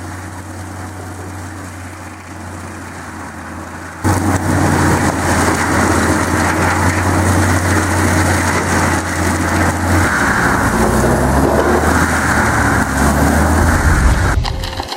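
Large stump grinder's engine running steadily. About four seconds in, a much louder, rough grinding noise starts suddenly over it and keeps going as the carbide-toothed cutter works.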